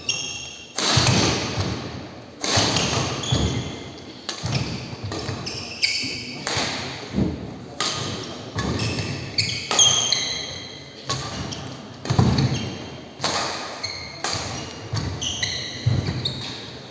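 Badminton rally: rackets striking the shuttlecock back and forth about once a second, each hit echoing through the large hall, with players' shoes squeaking on the wooden court between strokes.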